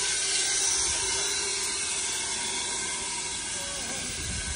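Fire extinguisher discharging in a steady, continuous hiss, aimed at a fire still burning under a car trailer.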